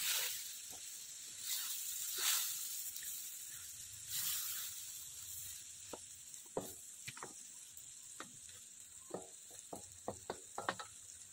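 Food sizzling in hot oil in a metal wok while a spatula stirs and scrapes it, with a run of short sharp knocks of the spatula against the wok in the second half.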